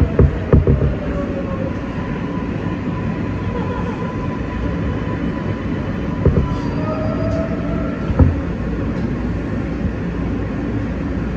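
R143 subway car in motion: a steady rumble and rattle of wheels on the track, with a faint steady whine and a few sharp knocks, near the start, about six seconds in and about eight seconds in.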